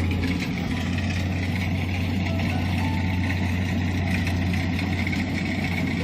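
Kubota DC-70 combine harvester's diesel engine running steadily with a constant low hum.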